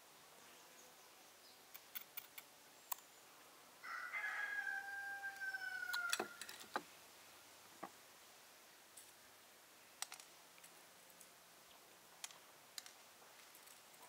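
A rooster crowing once, a single slightly falling call lasting about two seconds, starting about four seconds in. Around it are scattered light clicks and taps from a spoon and a dish of cloves being handled at a metal pan.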